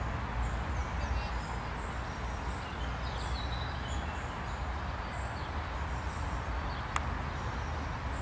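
Birds chirping in the surrounding trees, many short high calls throughout, over a steady low rumble, with a single sharp click about seven seconds in.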